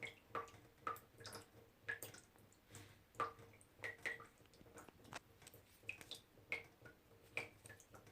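Small water droplets dripping into water, irregular plinks about one or two a second, each with a short bright pitched blip that varies from drop to drop.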